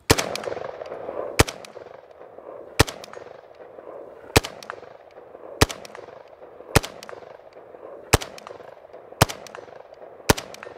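Short-barrelled Bulgarian Krinkov-style AK in 5.56x45 with a four-piece muzzle brake, fired in slow semi-automatic: nine single shots a little over a second apart, each followed by an echoing tail.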